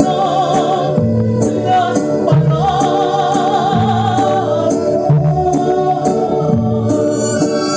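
Latin American popular song performed with band accompaniment: a woman singing, holding a long note with wide vibrato from about two and a half seconds in, over a steady bass and percussion beat.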